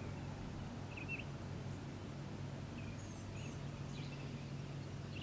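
A few short, faint bird chirps over a low steady hum.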